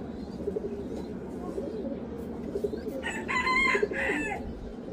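Pigeons cooing softly throughout. A rooster crows once, about three seconds in, for a second and a half, louder than the cooing.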